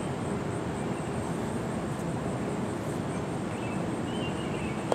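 Steady outdoor background noise with a few faint chirps, and a single sharp knock near the end.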